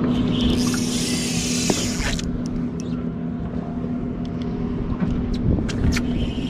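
Steady hum of the boat's motor, with a hiss over the first two seconds and a few light clicks and knocks from handling the rod and reel.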